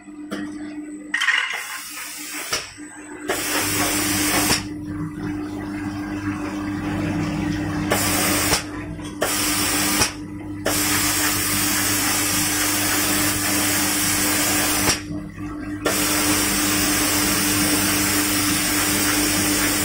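Automatic spray-painting machine's spray gun hissing as it sprays, cutting off briefly several times, over a steady machine hum and water running in the booth's water curtain.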